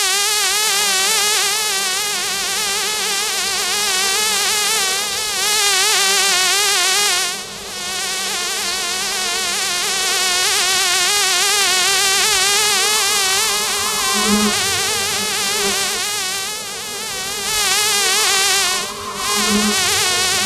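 Honey bee buzzing in a steady, wavering drone, dipping briefly twice, about seven seconds in and near the end.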